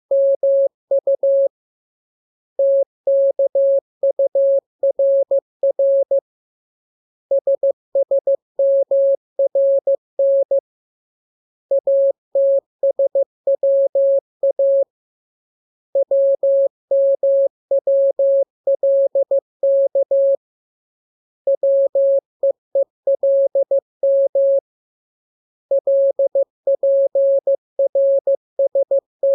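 Morse code sent as a single steady audio tone keyed on and off in rapid dots and dashes, in groups of characters separated by pauses of about a second. It is a practice radiogram for learning to receive the letters K, M, U, R, E, S, N, A, P, T, L and W by ear.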